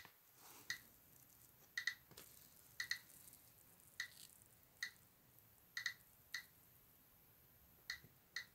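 Geiger counter clicking at irregular, random intervals, a little over once a second and sometimes twice in quick succession, as it counts radiation from a radioactive thorium mineral specimen. Each count is a short, high-pitched beep-click.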